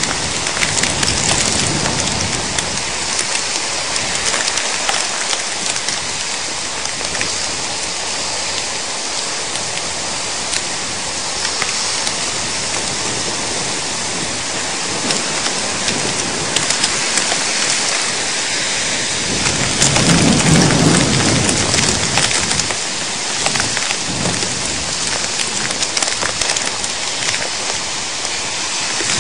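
Heavy thunderstorm rain pelting down steadily, with a rumble of thunder about two-thirds of the way through.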